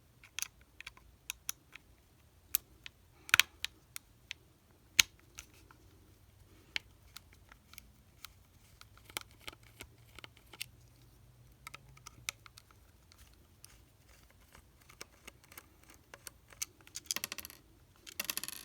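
Irregular light clicks and ticks of a T9 screwdriver working small screws out of a plastic walkie-talkie case, with a few sharper clicks in the first few seconds. A short scraping rustle comes near the end.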